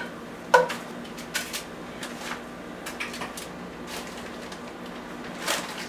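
Light clicks and knocks as raw chicken drumsticks are set into a foil-lined pan with a utensil. The loudest is a short ringing knock about half a second in. A faint steady hum runs underneath.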